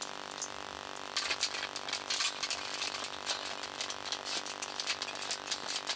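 Small objects clicking and rattling as they are handled and moved around on a workbench, a dense run of short clicks starting about a second in, over a steady hum.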